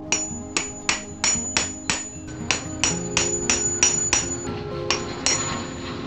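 Hammer striking a steel rod held in an old axe head's eye, about fourteen sharp metallic blows at roughly three a second with a short pause near the end, each with a brief high ring, driving the old wooden handle out of the eye. Background music plays underneath.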